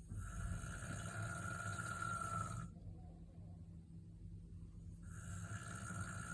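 A person snoring loudly. There are two long snores, each about two and a half seconds, with a gap of about two seconds between them. Each snore carries a steady high whistling tone over a low rumble.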